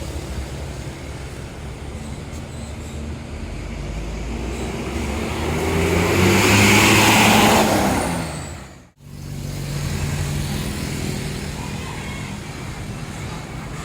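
Tour bus engines. One bus pulls away and passes, getting louder and rising in pitch with a hiss at its loudest. The sound breaks off suddenly about nine seconds in, then another bus engine runs steadily.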